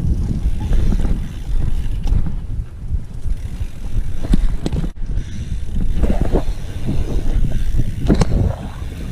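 A BMX bike being ridden: wind buffeting the microphone over the rumble of rolling tyres, with a few sharp knocks and rattles from the bike in the second half.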